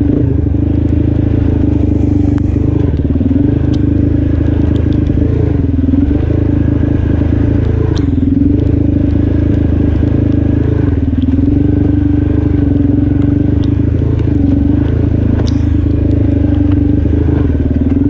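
Yamaha Raptor 350 ATV's single-cylinder four-stroke engine running steadily under way, its pitch dipping slightly every few seconds with the throttle. It has a freshly rejetted carburetor on a 150 main jet and runs smoothly without cutting out.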